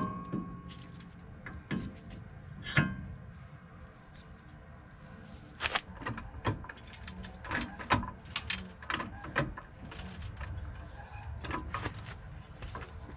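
Hydraulic floor jack being pumped by its long handle to raise a truck's lower control arm: a run of short clicks and knocks, about two a second, from about 5 seconds in. Near the start there is one sharp metal clank that rings briefly, and a second knock a few seconds later.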